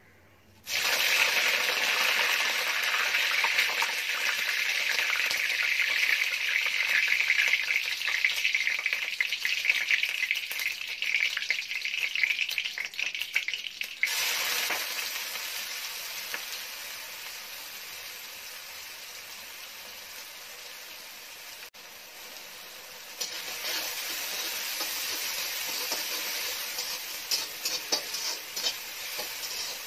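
Curry leaves hit hot oil in an aluminium kadai and sizzle and crackle sharply. About fourteen seconds in, chopped shallots are tipped in and the sound drops to a softer, steady frying. This grows again later as the onions are stirred, with a spoon clicking against the pan near the end.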